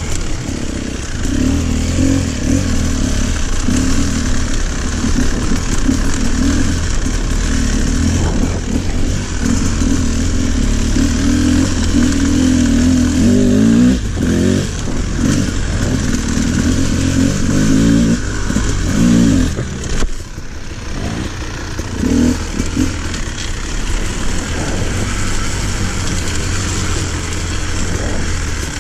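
Dirt bike engine running under load, the revs rising and falling with the throttle. The revs climb steeply around 13 to 14 seconds in, and the engine eases off about 20 seconds in before pulling again.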